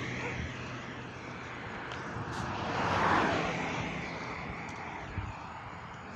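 Road traffic: a passing vehicle's engine and tyre noise swells to a peak about halfway through and fades again.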